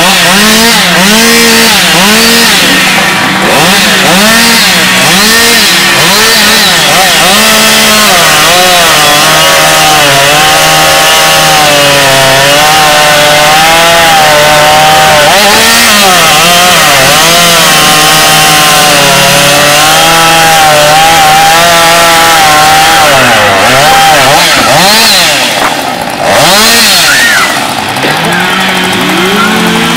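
Chainsaw running at full throttle through a cut in wood, its engine pitch repeatedly dipping and recovering as the chain loads up in the cut. It eases off briefly near the end, then revs up again.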